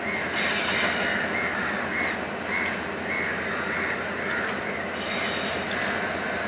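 Diesel locomotive moving slowly through curved yard trackwork, its wheels squealing in a pulsing squeal about twice a second over a steady rumble. Two louder, hissing squeals come about half a second in and again about five seconds in.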